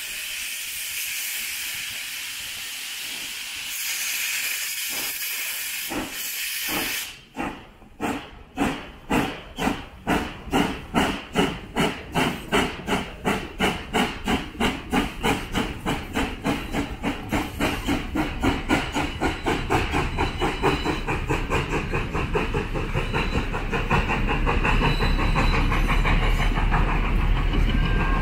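Steam tank locomotive hissing as steam vents from its open cylinder cocks, then working away with exhaust chuffs that start slow about six seconds in and quicken to a steady rapid beat. Near the end the low rumble of its coaches rolling past builds under the chuffing.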